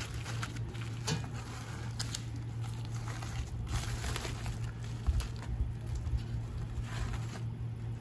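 Aluminium foil crinkling and crackling in irregular bursts as a foil-wrapped sandwich is unwrapped by hand, over a steady low hum.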